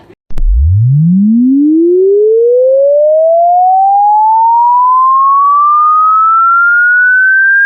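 A single pure electronic tone sweeping steadily upward in pitch, from a very low hum to a high whistle, at a constant loud level.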